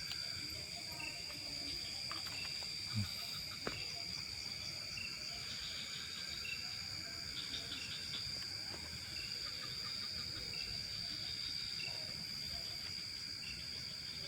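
Insects, crickets among them, trilling in one steady high unbroken note, with a short lower chirp repeating about once a second and a couple of faint knocks.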